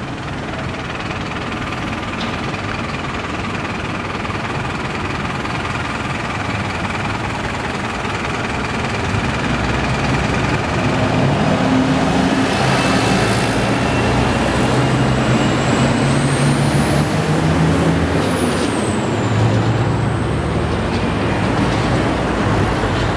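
Road traffic with a heavy motor vehicle passing, growing louder about halfway through; its engine note is steady, and a high whine rises and then falls a little after the middle.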